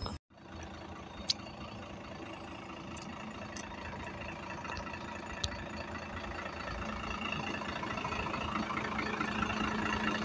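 City bus engine idling close by: a steady hum with a low held tone that grows louder toward the end, with a few sharp clicks in the first half.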